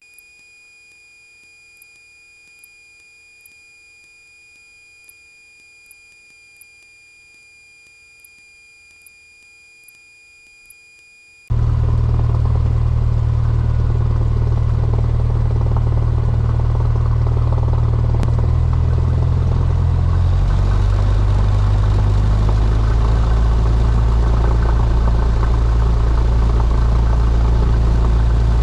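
Quiet recording hiss with faint steady electronic tones and about a dozen soft clicks, then, about a third of the way in, the Cessna 172's piston engine cuts in suddenly, loud and steady as heard inside the cabin. Its pitch shifts slightly about two-thirds of the way through, during the engine run-up before takeoff.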